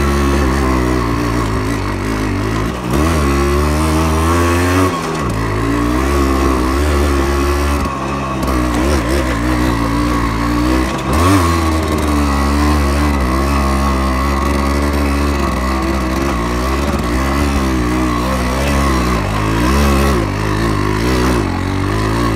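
Yamaha RX-100's two-stroke single-cylinder engine running while the bike is ridden. Its pitch rises and falls every second or so as the throttle is worked.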